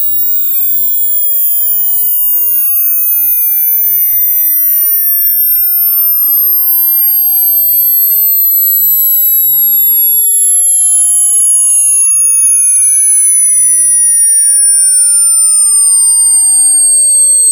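Electronic sine-wave test tone for an online hearing test, gliding steadily in pitch. The loudest part is a very high tone slowly falling, with fainter tones sweeping up and down beneath it.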